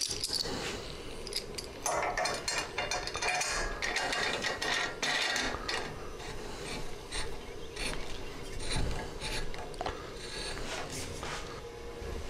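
Stainless still column parts being fitted together by hand: irregular scraping, rubbing and metallic clicks, busiest about two to five seconds in.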